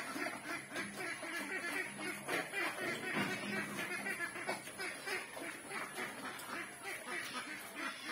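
Duroc pig feeding with its head down, making rapid, rhythmic short grunts and chomping noises, about three or four a second.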